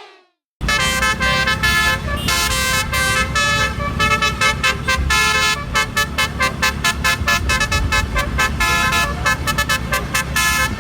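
Vehicle horns tooting over and over in quick succession above a steady low engine rumble, starting about half a second in and cutting off suddenly at the end.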